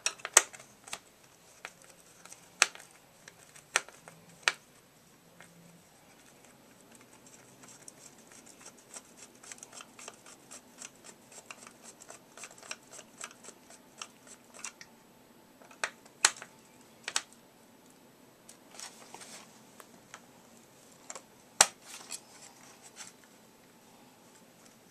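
Plastic parts of a Swivel Sweeper clicking and scraping as they are handled and pried apart: scattered sharp clicks and taps, with a stretch of faint quick ticking in the middle.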